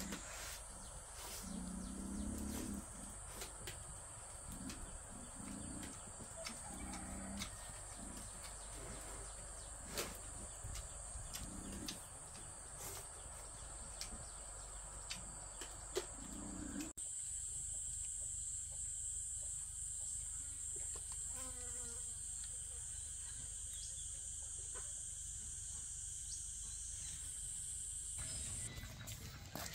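Steady high-pitched drone of insects, with a few short low sounds in the first half.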